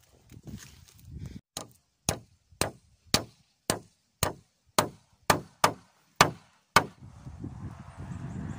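A machete chopping into a wooden pole: about eleven sharp strokes, roughly two a second, that stop about seven seconds in. Wind buffets the microphone near the end.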